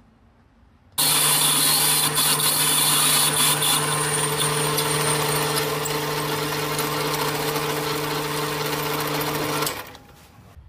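Sieg C2 mini lathe running under load, its motor humming steadily at one pitch while a twist drill in the tailstock bores an 8 mm hole into spinning brass bar, with a hiss of cutting over the hum. The sound cuts in suddenly about a second in and stops shortly before the end.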